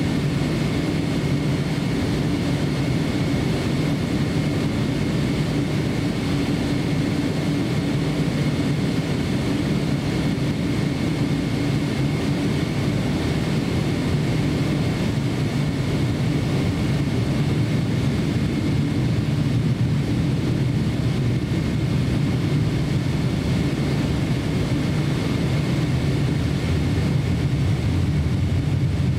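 Cabin noise inside a Boeing 777-300ER taxiing on the ground: a steady rumble of the jet engines at taxi power, with a faint high whine held throughout.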